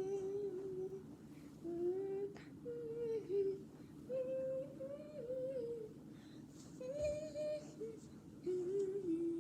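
A voice humming a wordless tune in short phrases of gliding pitch, with brief pauses between them.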